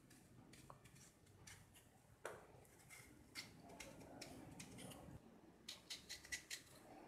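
Near silence with faint, irregular crisp clicks of a small knife cutting thin slices from a raw potato held in the hand.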